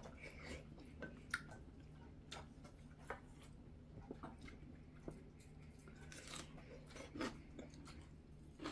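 Faint chewing and biting of a person eating, with a few light clicks scattered through it.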